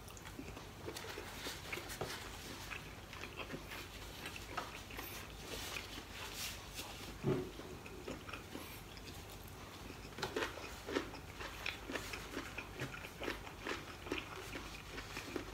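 Close-up chewing of a mouthful of roast pork spare rib and black bean noodles, with many small mouth clicks and crackles, and a louder low knock about seven seconds in.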